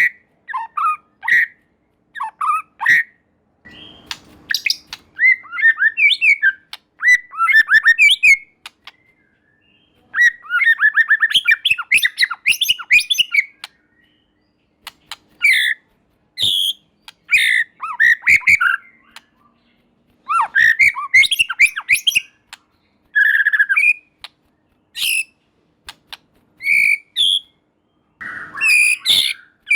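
White-rumped shama singing: loud phrases of clear whistles and chattering notes, including a long run of rapid repeated notes in the middle, broken by short pauses.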